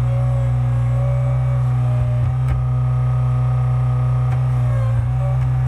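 Skid steer engine running steadily, a loud deep drone, with a few faint knocks.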